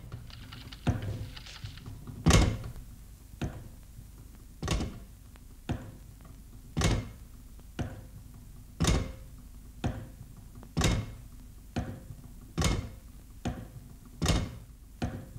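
A slow, even series of heavy thuds, about one a second, alternating louder and softer strikes.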